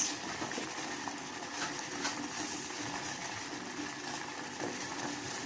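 A pot of water with spices at a rolling boil on the stove: a steady bubbling hiss.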